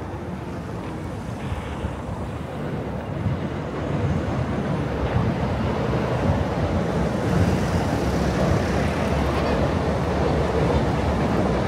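Crowded pedestrian street ambience: a steady wash of many voices blending together, getting louder about four seconds in.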